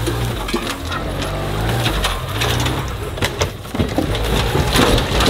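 Honda Acty kei truck's small engine revving, low and uneven, as the truck is driven over rough ground. From about three and a half seconds in come a run of sharp knocks and crunches: logs shifting and cracking under the wheels as the truck climbs onto a log pile.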